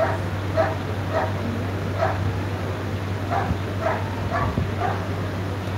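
A dog barking in short, repeated barks, about two a second, pausing briefly near the middle and then barking again.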